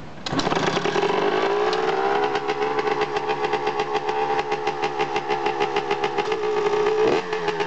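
A Honda CR125 two-stroke single-cylinder dirt bike engine catches just after the start and settles into a fast, crackly idle, its pitch rising a little over the first couple of seconds before holding steady. Near the end there is a short dip and a quick rise in pitch.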